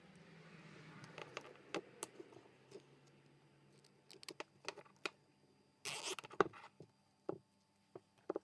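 Small handling sounds: a soft whir that fades over the first few seconds, then scattered light clicks and taps, with a brief louder rustle about six seconds in.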